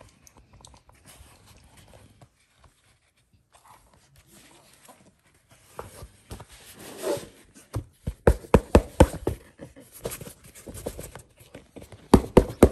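Hands wrestling a tight-fitting hardcover book out of its slot in a cardboard box set: faint scraping at first, then a rapid series of knocks and thumps of board against board, thickest from about eight seconds in and again near the end.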